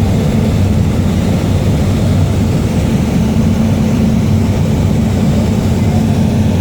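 Small propeller aircraft's engine running steadily: a loud, even, low drone with a constant hum.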